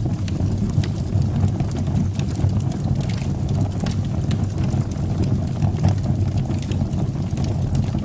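Wood fire burning in a fireplace: a steady low roar of the flames with frequent small crackles and pops.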